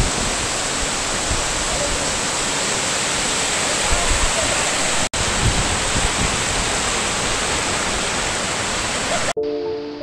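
Kookal waterfall's water rushing loudly and steadily. There is a split-second gap about halfway, and near the end the water sound cuts off abruptly into background music with held tones.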